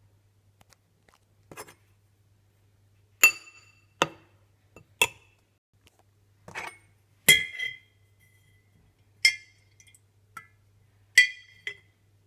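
A spoon clinking against a dish while cake batter is mixed: about nine sharp, irregular clinks, several ringing briefly.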